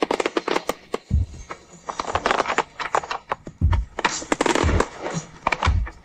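Fireworks display: dense crackling and popping of many bursting shells, with deep booms about a second in and several more in the second half.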